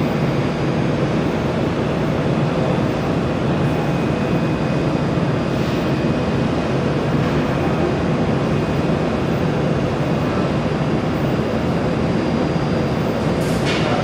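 Steady machine running noise, a loud even rush with no distinct pitch or rhythm.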